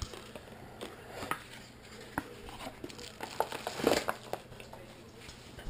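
Scattered light taps, knocks and rustles of a cardboard chocolate box being handled and set down on a counter, with a louder cluster of knocks about four seconds in.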